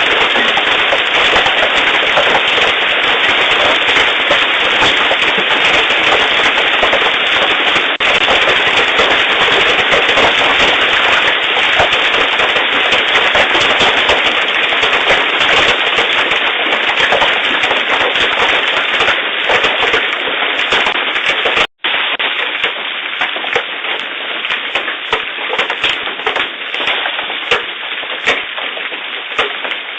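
Large hailstones hitting hard surfaces in a loud, dense, rapid clatter of impacts. After a momentary break about 22 seconds in, the hits come somewhat less densely.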